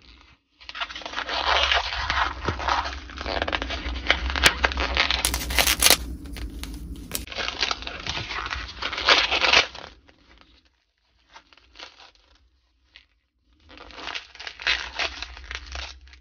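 Rustling and crinkling in uneven bursts over a low rumble, stopping at about 10 seconds in and starting again near the end.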